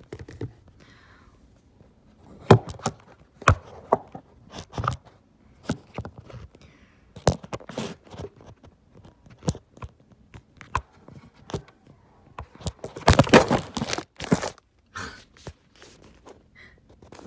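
A string of sharp knocks, taps and scrapes, with a denser clatter about 13 seconds in: things handled and shuffled on a cupboard shelf close to the phone's microphone.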